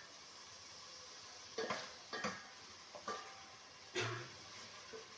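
A spoon stirring the masala in a steel pot, knocking and scraping against the pot about four times, over a faint steady sizzle of the masala frying in oil.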